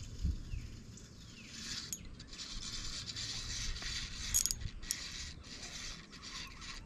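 Ultralight spinning reel being cranked, its gears whirring steadily as line is wound in, with a few sharp clicks along the way.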